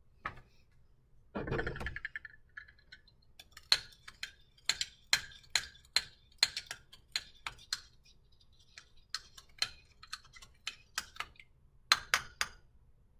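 Metal spoon clinking against a ceramic cup while stirring: a run of sharp, ringing clinks, two or three a second, with a short pause in the middle and a quick cluster near the end. About a second in there is a brief, duller rustle or bump.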